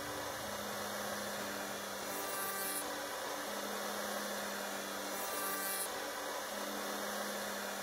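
Fixed-base electric router running steadily with a chamfer bit, cutting a chamfer along the edge of a pine tabletop.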